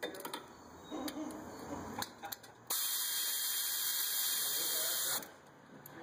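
Pneumatic ratchet running for about two and a half seconds with a steady loud hiss, between a few light metal clicks and taps, as it draws the new front hub assembly's bolts in.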